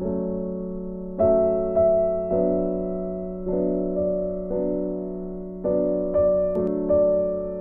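Background piano music: slow, soft chords, each struck and left to fade before the next.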